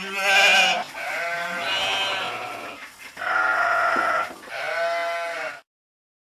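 Sheep bleating: about four long baas one after another with short gaps between them, the second starting loudest. The sound cuts off suddenly near the end.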